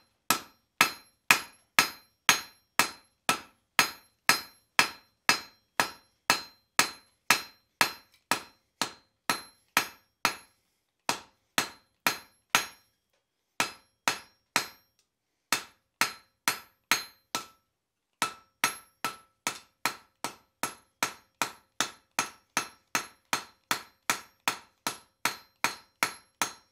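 Hand hammer striking a red-hot steel bar on the anvil, ringing blows about two a second, as the end of a round punch is put into its final shape. After a few short pauses in the middle, the blows come quicker and lighter, about three a second, near the end.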